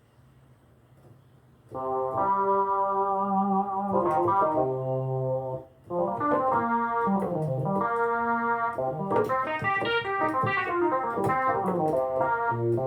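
Vintage-style keyboard preset from Arturia Analog Lab V software played as sustained chords over a held bass note, beginning about two seconds in after a near-silent pause, with a short break in the middle and moving melody notes afterwards.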